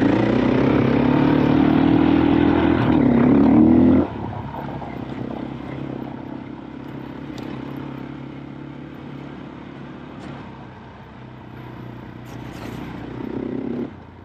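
A KTM 500 EXC-F dirt bike's single-cylinder four-stroke engine pulls hard under throttle, its pitch climbing, for about four seconds. It then drops suddenly to lower revs and runs quieter. Near the end it swells again, then cuts off abruptly.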